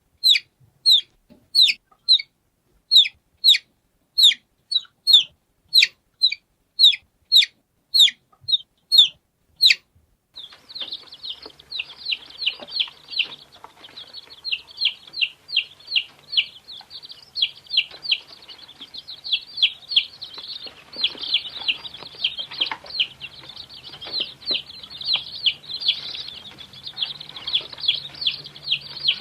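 Baby chicks peeping. First come loud, separate peeps, each a quick falling chirp, about two a second. About ten seconds in, a dense chorus of many chicks takes over, peeping continuously on top of one another over a faint low hum.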